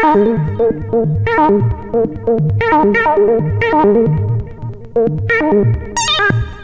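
DIY breadboard analog synthesizer playing a rhythmic electronic pattern: a pulsing bass line and a held note under bright, wavering accent notes, roughly one a second, each one's brightness falling away after the hit.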